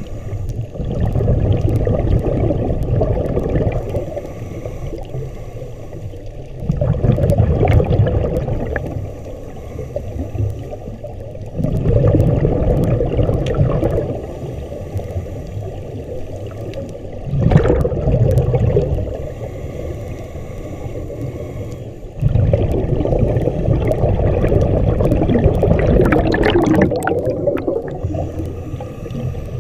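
Scuba diver breathing through a regulator underwater: five rushes of exhaled bubbles rumbling about every five seconds, with quieter inhalations between, the last exhalation long and drawn out.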